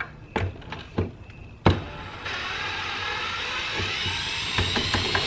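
Cordless drill/driver backing out a screw from the controller's power-compartment cover: a few light clicks, then the drill motor runs steadily for about three seconds with its whine creeping slightly up in pitch.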